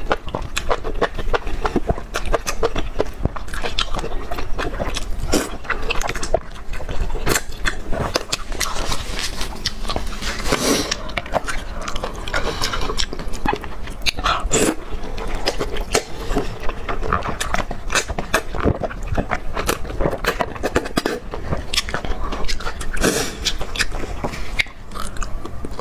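Slurping of wide glass noodles from a spicy broth, with wet chewing: a dense run of small wet smacks and clicks, and a few louder slurps along the way.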